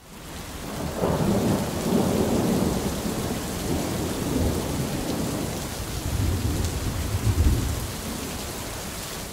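Rain and thunder sound effect: a steady hiss of heavy rain that fades in over the first second, with low rolling thunder swelling about a second in and again, loudest, around seven seconds in.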